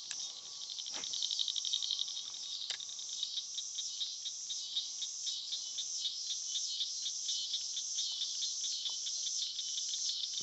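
A chorus of insects makes a high, pulsing trill that beats about twice a second, with a few faint clicks in the first few seconds.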